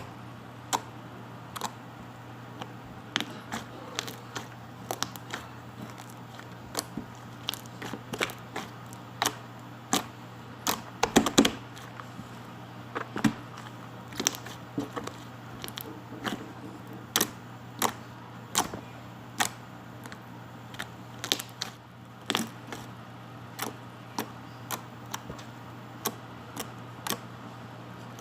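Slime being squeezed and poked by hand, giving sharp little clicks and pops as air pockets burst, about one a second and bunched together around the middle, over a steady low electrical hum.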